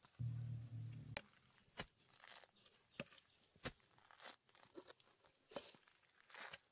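Wooden digging stick jabbing into soil and tearing through grass roots: several sharp knocks with scraping and crunching between them. A brief low hum in the first second.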